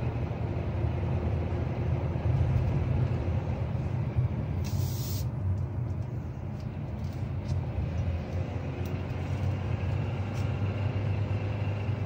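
2024 Kia Sportage Hybrid's 1.6-litre turbo four-cylinder engine under load while accelerating uphill, heard from inside the cabin as a steady drone with faint steady tones above it. The owner calls this weird engine noise terrible and horrible, and says it is nice and loud here. A brief hiss comes about five seconds in.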